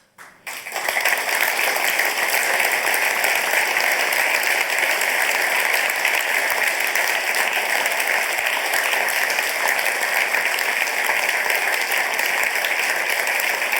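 Audience applauding, a sustained burst of clapping that begins about half a second in and quickly swells to a steady level.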